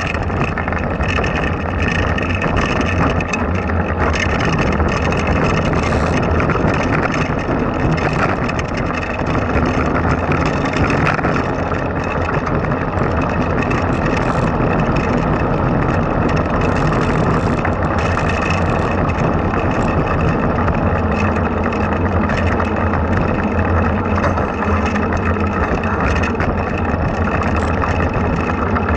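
Blokart land yacht rolling along asphalt under sail: a steady rumble from its small wheels on the rough tarmac and the rattle of the frame, mixed with wind rushing over the kart-mounted microphone.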